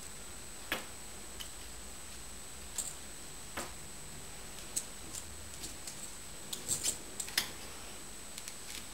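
Scattered light clicks and taps at irregular intervals, bunched most closely about two-thirds of the way in: a cat's paws and claws striking a wall as it swats at a reflected light spot. A faint steady high whine runs underneath.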